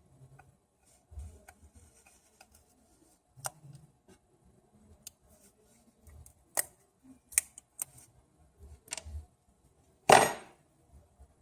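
Small repair tools clicking and tapping on an iPhone's internal parts during a screen teardown: scattered light clicks, with one louder knock about ten seconds in.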